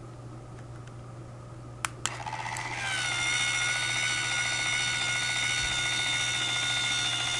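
EcoNet EBV105 valve robot's electric gear motor turning the valve: two sharp clicks, then the motor starts about two seconds in and runs with a steady whine.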